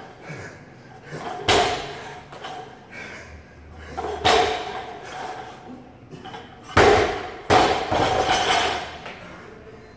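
Barbell loaded with bumper plates striking rubber gym flooring: four heavy thuds, each with a short metallic ring from the bar and plates. The last two come less than a second apart, as the bar is dropped and bounces.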